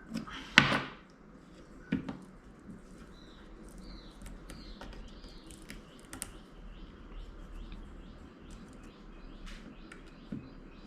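Scattered small clicks and knocks of tools and phone parts being handled while the glued battery is pried out of an iPhone 6s, with a short loud scrape about half a second in. Faint bird chirps sound in the background.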